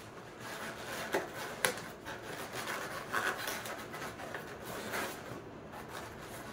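Hands pressing and rubbing an inflated latex modelling balloon, twisted into a heart, against a wall: irregular rubbing and scraping with a few sharp clicks, the sharpest about a second and a half in.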